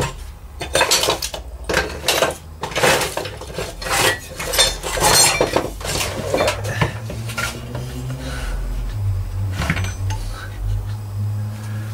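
Metal hand tools and wooden pieces clinking and clattering as they are handled and rummaged through in a tray of tools, in a string of short knocks. A low steady hum comes in during the second half.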